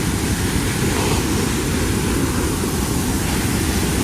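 Devi's Fall waterfall plunging into its gorge: a loud, steady rushing roar, deepest and heaviest in the low end.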